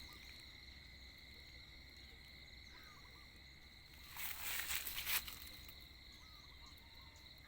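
Steady, faint high-pitched insect trill, with small bird chirps now and then. About four seconds in, a second or so of louder rustling noise.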